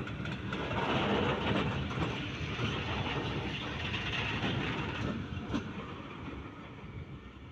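Electric-hauled passenger train running past close by, its wheels rumbling and clattering over the rails. The noise is loudest about a second in and then slowly fades.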